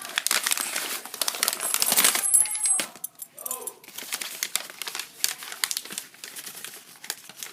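Plastic packaging crinkling and rustling as a boxed pair of handcuffs is unwrapped, loudest in the first three seconds and lighter after.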